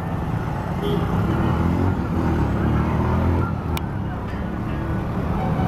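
Busy city intersection traffic: motorcycle and car engines running close by in a steady low rumble. A short sharp click comes a little before four seconds in.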